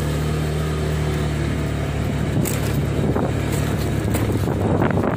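A large engine running steadily at a low, even pitch, with wind buffeting the microphone more and more in the second half.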